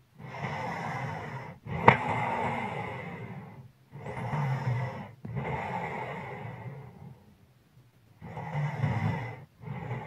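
A sleeping person breathing heavily, in and out in long noisy breaths with a low snoring rattle, about six breaths with a longer pause after about seven seconds. A single sharp click about two seconds in.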